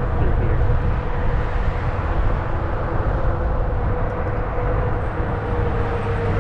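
Zota Zephyr fat-tire e-bike being ridden: a steady low rumble of tyres and wind, with a constant whine from the electric motor.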